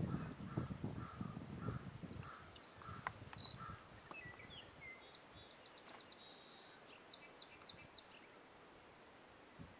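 Songbirds chirping and trilling, high and quick, in two spells about two and six seconds in. There is uneven low rumbling in the first two seconds.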